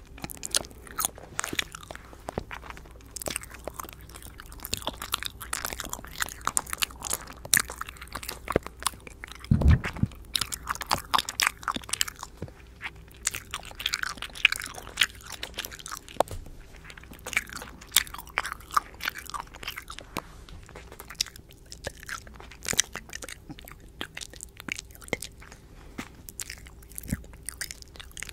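ASMR mouth sounds close to a microphone: rapid wet clicks and smacks of lips and tongue, with breathy stretches in the middle. One low thump on the microphone about ten seconds in.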